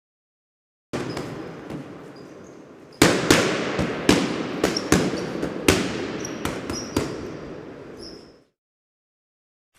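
Cartoon sound effect of crackling and popping: a hissing crackle starts about a second in, then a loud bang about three seconds in sets off a string of sharp pops and cracks that fade away.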